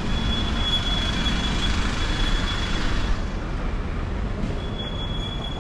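Street ambience in a narrow urban market street: a steady low traffic rumble and a broad hiss that eases a little about three seconds in, with a thin steady high whine through much of it.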